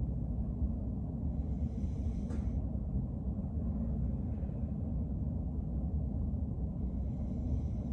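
Steady low rumble of background noise, with two faint soft hisses: one about two seconds in, and one near the end.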